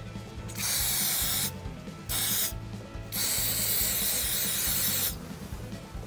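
An aerosol can spraying in three hissing bursts: a short one, a shorter one, then one about two seconds long.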